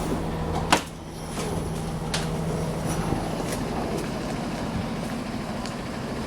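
Diesel bus running with a steady low hum, with one sharp knock just under a second in.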